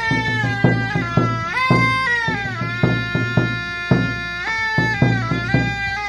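Traditional Q'eqchi' music: a short wooden wind pipe plays a melody of held notes that slide down into the next, over a large rope-laced wooden drum beaten at about three strokes a second.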